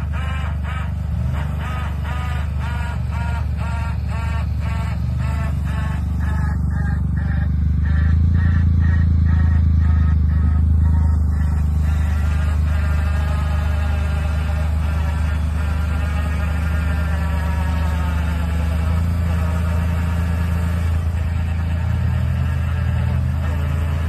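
Small 4x4's engine running, a steady low hum, while the Suzuki Jimny sits stuck in deep snow on a winch line. For the first half it pulses about twice a second, and then a wavering whine runs over it.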